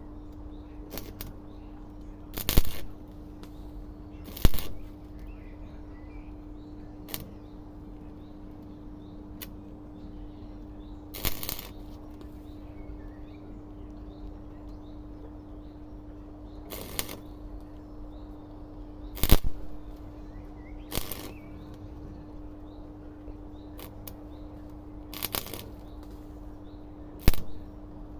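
Welder laying short tack welds on a car body panel: about ten brief crackling bursts at irregular intervals, each lasting under half a second, over a steady low hum.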